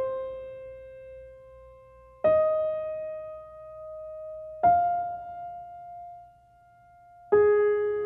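Background music: slow solo piano, single notes struck about every two and a half seconds and left to ring down. The first three climb in pitch, and the last, near the end, is lower and comes with fuller notes underneath.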